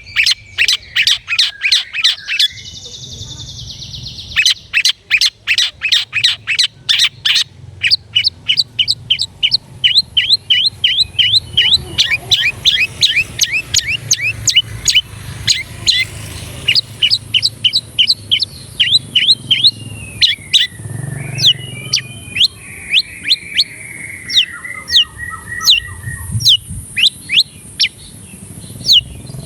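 Long-tailed shrike (cendet) singing a rapid run of sharp repeated chirps, about four or five a second, with a short buzzy falling trill about two-thirds of the way through.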